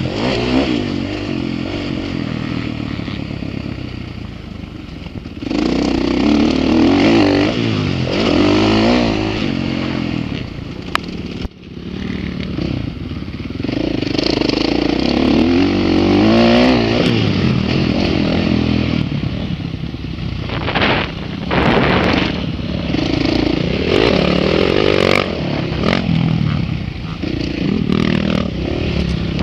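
Dirt bike engine revving hard and falling back again and again as the rider works the throttle through the track. About eleven seconds in the engine noise drops off sharply for a moment before picking up again.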